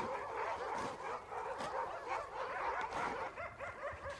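Several dogs making many short, overlapping high-pitched calls.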